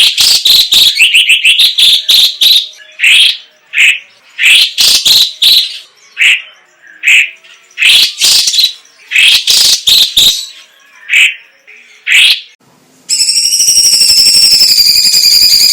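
Leafbird (cucak ijo cina, cucak cungkok) singing loudly and continuously, with fast chattering trills at first and then sharp, varied phrases about once a second. About thirteen seconds in the song breaks off and a steady, wavering high buzz takes over.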